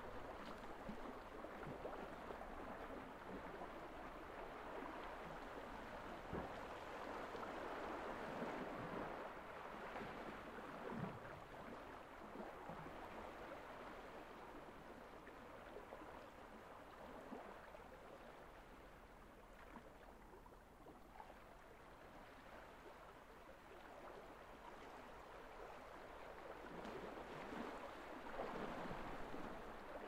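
Gentle sea waves washing onto a gravel beach: a soft wash that rises and falls, louder about a third of the way in and again near the end, quietest a little past the middle.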